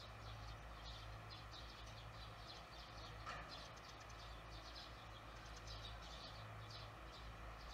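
Faint twittering of barn swallows at their mud nest: many short, rapid high chirps, irregular, one a little louder about three seconds in, over a steady low hum.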